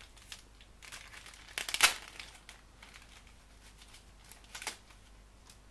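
Thin plastic packaging wrapper crinkling and rustling as it is pulled open by hand, in short irregular crackles, the loudest about two seconds in and another shortly before the end.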